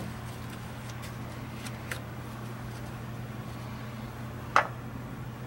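Small clicks and handling noises of ignition wiring being worked on by hand at the ignition coil, over a low steady hum. One sharp click about four and a half seconds in.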